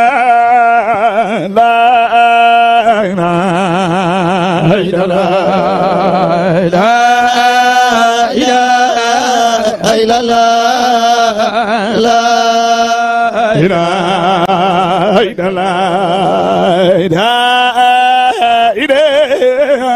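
A man's voice chanting Islamic zikr (Sufi devotional chant) in long, drawn-out melodic phrases with wide, wavering vibrato on the held notes.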